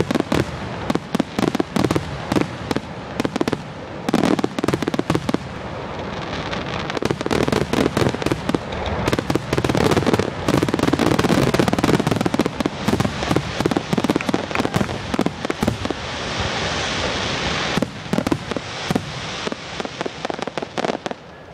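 Fireworks display: a dense, rapid run of aerial shell bursts, one bang overlapping the next with crackling between them. About three-quarters of the way through, a hissing crackle rises above the bangs.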